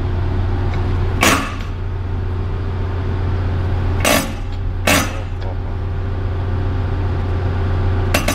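Yanmar diesel fuel injector on a hand-lever nozzle tester, spraying atomized diesel in three short, sharp bursts at its opening pressure, about a second in and then twice close together near the middle. A steady low drone of engine-room machinery runs underneath.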